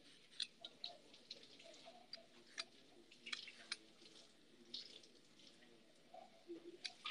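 Near silence with faint, irregular light clicks and taps, like small kitchen handling noises.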